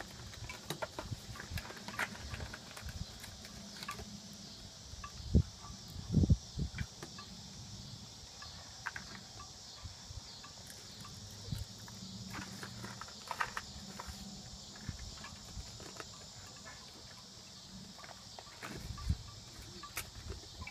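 Paper prize packets and cardboard Cracker Jack boxes being handled and peeled open: scattered rustling and crinkling, with a couple of dull thumps about five and six seconds in. A steady high insect drone runs underneath.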